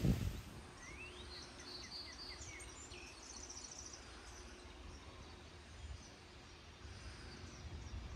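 Songbirds chirping and calling, with a few quick rising whistles and short trills about a second in, over a low steady rumble.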